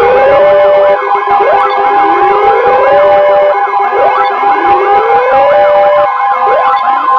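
Emergency alert tones from a weather-radio broadcast: a steady, loud attention tone, overlaid by siren-like rising wails that repeat about every two seconds.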